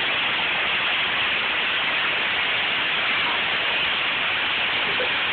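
Torrential rain of a severe storm: a steady, even rushing hiss.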